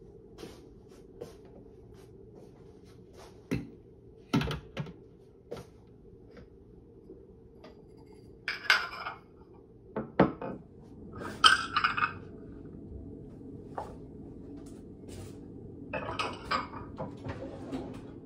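Dishes and kitchenware being taken off a drying rack and put away: scattered clinks and knocks of plates, cups and a pot. Three longer clattering stretches come about halfway through and near the end.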